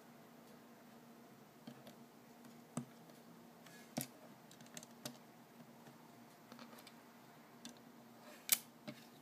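Small LEGO plastic pieces of a Batmobile model being pressed and handled: a few scattered light clicks and taps, the loudest near the end.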